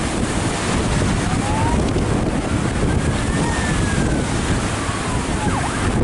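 Heavy wind noise buffeting the microphone, a dense steady rumble; a faint thin whistle rises and then falls through the middle.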